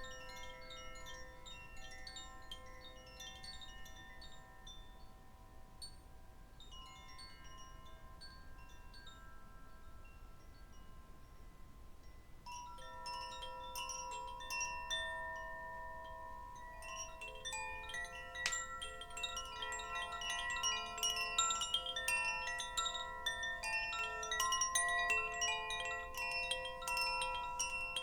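Chimes ringing: many overlapping struck notes that hang and fade. They are sparse at first, then grow denser and louder from about halfway through.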